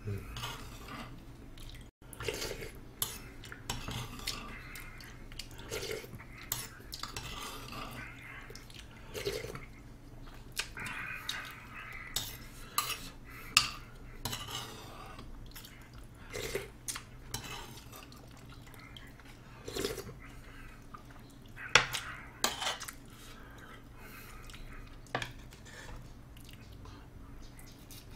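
Metal spoon and chopsticks clinking and scraping against plates and bowls, in irregular clicks with short scrapes.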